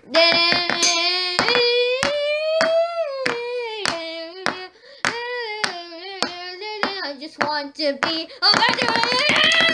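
A high voice singing a wordless melody in long held notes that slide up and down, over sharp clicks keeping a beat about twice a second. The singing grows louder and more wavering near the end.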